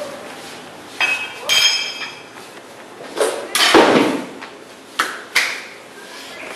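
A steel car wheel with its tyre being handled and set down on a tiled floor: a few knocks, one with a short metallic ring, then a longer thump and scrape as the tyre lands, which is the loudest sound. Two sharp clicks follow about five seconds in.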